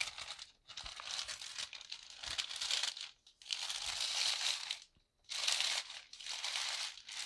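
Clear plastic bag crinkling as it is handled and pulled off a boxed figure, in several bursts with short pauses between.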